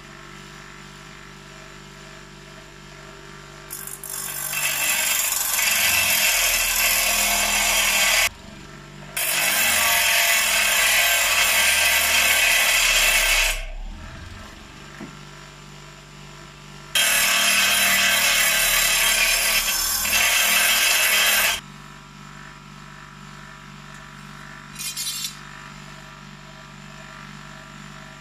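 Einhell bench grinder running with a steady hum while a steel threaded rod is pressed against the wheel three times, several seconds each, giving a loud hiss of steel being ground. A brief fourth touch near the end.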